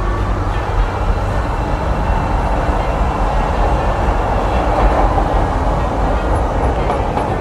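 Chicago L rapid-transit train running on its rails: a steady, loud rumble and rattle of wheels and cars, swelling slightly midway.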